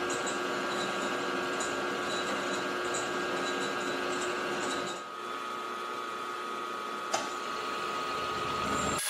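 Small milling machine running, its end mill cutting a slot in a metal plate held in a vise: a steady whine with a constant high tone. About halfway the low part of the sound drops away, and a single sharp click sounds near the end.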